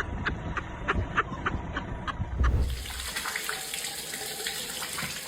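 About two and a half seconds of regular ticking over a low rumble, then a cut to a steady gush of liquid pouring out: fresh milk being dumped.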